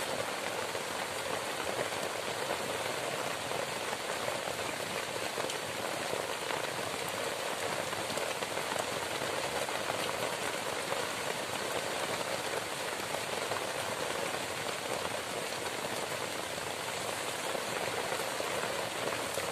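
Heavy rain falling steadily on the leaf-and-grass shelter and the surrounding foliage, an even hiss of drops with no change in strength.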